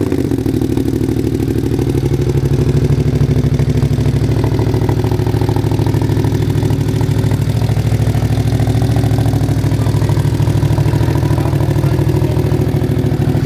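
Ducati Panigale V2S V-twin idling steadily through a Termignoni full exhaust system.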